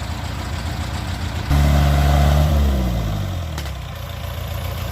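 Farm machine engine idling steadily. About a second and a half in, a louder engine note cuts in suddenly, then drops in pitch and fades over the next two seconds. A single click comes near the end of that fade.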